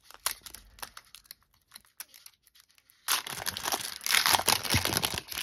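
Foil hockey card pack being torn open: a few light crinkles at first, then about three seconds in a loud stretch of tearing and crinkling as the wrapper is ripped and peeled back.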